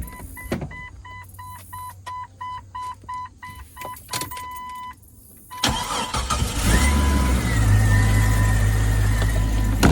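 A vehicle warning chime beeps rapidly, about three a second, for several seconds and stops. About halfway in, a 1999 Jeep Cherokee XJ's 4.0-litre inline-six cranks, catches and settles into a steady idle.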